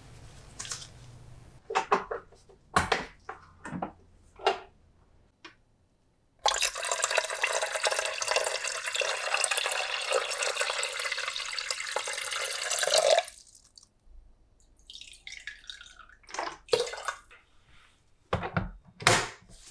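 Water from a kitchen tap running into the rice cooker's inner pot for about seven seconds, turned on and off abruptly. Light knocks and clinks of handling the pot come before and after.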